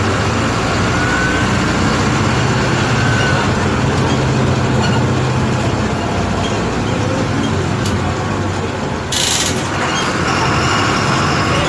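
Mercedes-Benz OF-1722M bus's diesel engine running, a steady drone. About nine seconds in the engine note dips and a short hiss is heard for under a second, then the engine pulls steadily again.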